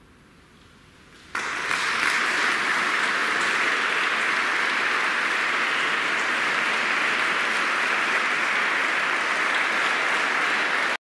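Audience applauding. It breaks out suddenly about a second in, holds steady, and cuts off abruptly near the end.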